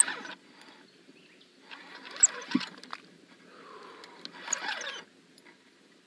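Fishing reel working in short spurts of about a second, twice, with a rough, clicking hiss between quieter gaps, while a hooked flathead catfish pulls on the bent rod.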